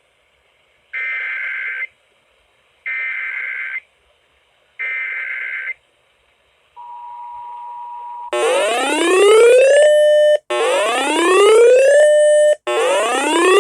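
Emergency Alert System header: three one-second bursts of the digital data tone, a brief steady attention tone, then a loud synthetic rising whoop repeated about every two seconds, announcing the next warning.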